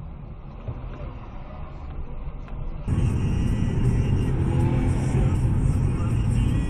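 Car driving, heard from inside the cabin: a steady rumble of engine and tyre noise. About three seconds in it jumps abruptly to a louder, fuller rumble.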